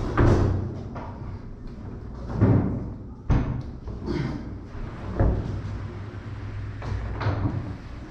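Repeated heavy thuds and bangs, about seven in eight seconds, over a steady low hum.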